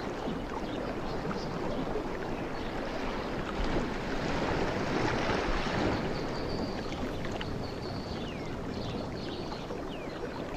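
Ocean waves washing in, a rushing hiss that swells and eases. Faint high bird chirps and short falling whistles sound over it in the second half.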